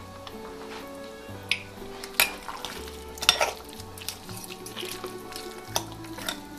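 Background music with a steady bass line, over the wet sounds of braised beef short rib being pulled apart by hand and fork in a glass bowl. A few sharp clinks of the fork against the glass stand out, the loudest about two and three seconds in.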